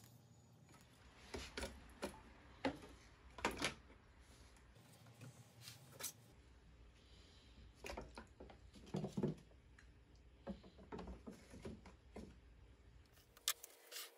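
Faint handling noises: scattered light knocks, clicks and rustles as a clear plastic tub of water and the plastic insulator inside it are handled, with a slightly heavier knock about nine seconds in.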